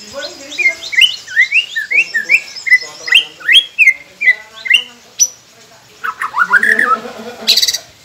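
White-rumped shama singing: a run of short, clear whistled notes that slide up and down, about three a second. After a brief pause comes a quicker cluster of rising notes, then a short, harsh, scratchy note near the end.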